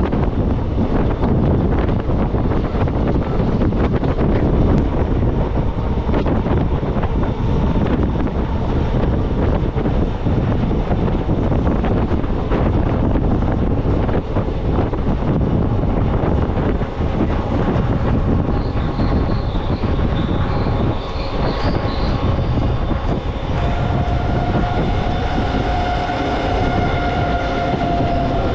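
Passenger train coach running along the rails, heard from its open door: a loud, steady rumble of wheels on track. About three-quarters of the way in, a steady high squealing tone from the wheels joins the rumble and holds.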